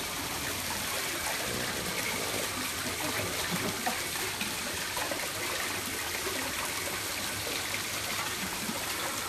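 Water running steadily into a shallow tiled basin, with a few small splashes.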